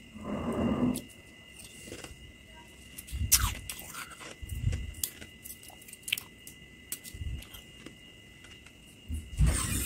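Someone biting and chewing slushy freezer frost: a handful of separate crunchy bites and chews with small clicks between them.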